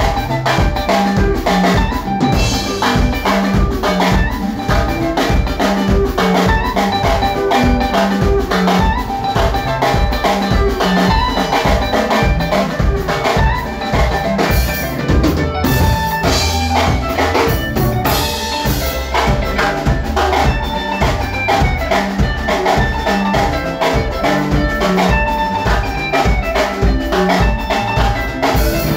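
Congolese seben played by a live band: fast, bright electric guitar lines over electric bass and a steady, driving drum-kit beat.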